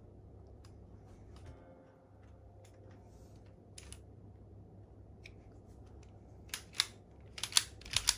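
Plastic Lego pieces of a brick-built toy pistol clicking as it is handled: a few light, scattered clicks, then a quick run of sharper, louder clacks in the last couple of seconds.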